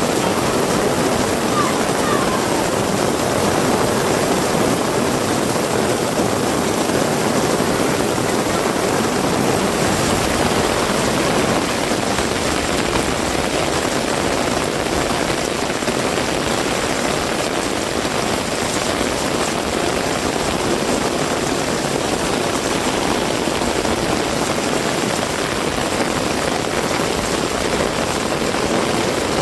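Heavy rain falling steadily as a dense, even hiss, with a low rumble joining about a third of the way in.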